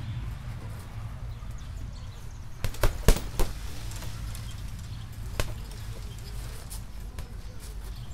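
Punches landing on a punching bag: a quick combination of about four hits around three seconds in, then a single hit about two seconds later, over a steady low hum.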